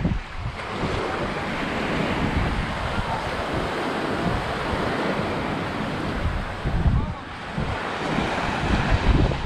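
Small waves washing in and out on a sandy shore, a steady hiss of surf, with gusts of wind buffeting the microphone, strongest a couple of seconds before the end.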